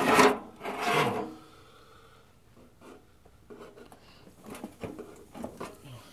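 Loose rocks scraping and knocking against each other and the galvanized metal tub as they are shifted by hand and with a metal rod. Two loud scrapes in the first second, then softer scattered clicks and knocks.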